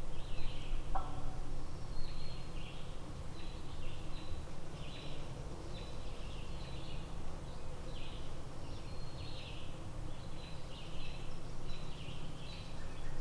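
Woodland birdsong: short high chirping notes repeated about twice a second, over a steady low rumble. A brief lower call sounds about a second in.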